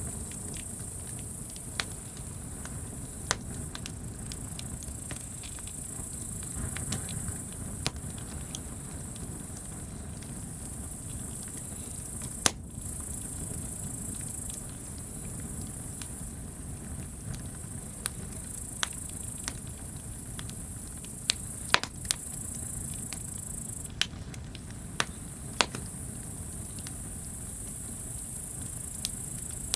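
Campfire crackling, with scattered sharp pops every second or two. Behind it run a steady high insect chirring that breaks off briefly a few times and a low steady rumble.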